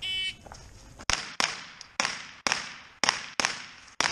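An electronic shot timer gives a short start beep, and about a second later a rifle fires seven sharp shots, loosely in pairs.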